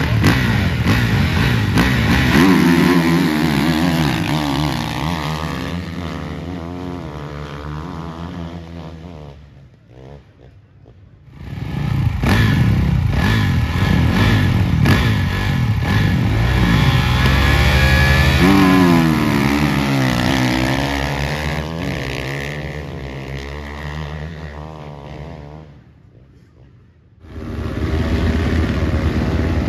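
Dirt bike engines revving with wavering pitch and pulling away, each one fading off: two in turn. After the second fades, another engine runs steadily near the end.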